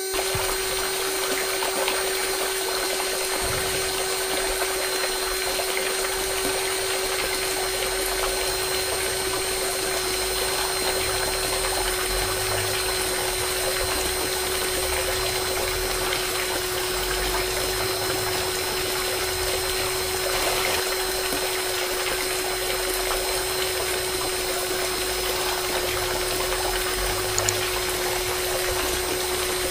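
Small DC motor of a homemade mini water pump running with a steady hum, with water pouring from its outlet tube onto wet sand.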